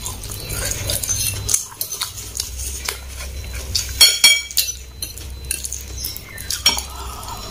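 Metal fork clicking and scraping against a ceramic bowl while picking up fried noodles, in scattered taps, with one louder ringing clink about four seconds in.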